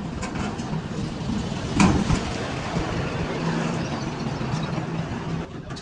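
A steady low mechanical hum like a running engine, with one sharp loud knock about two seconds in.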